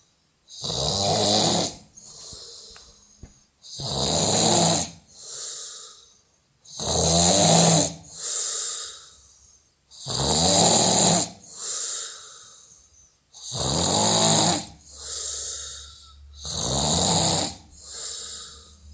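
Loud, regular snoring: six snores about three seconds apart, each followed by a quieter breath.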